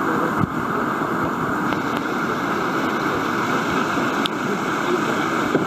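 Steady rushing of whitewater at a river standing wave, an even hiss-like noise of churning water with one faint tick about four seconds in.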